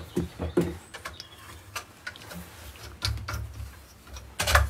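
Scattered light clicks and knocks of metal parts being handled while a sharpening jig is set against a bench grinder's wheel, with a low rumble in places.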